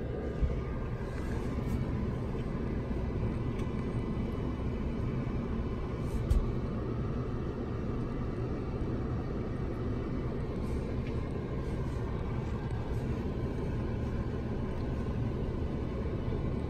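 Steady low rumble of a stationary car idling, heard from inside the cabin, with two brief knocks about half a second and six seconds in.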